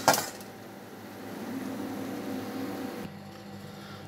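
A metal wire strainer clanks against the metal pot at the start, then a steady hiss from the gas stove and the pot of boiling water. About three seconds in this gives way to quieter room tone.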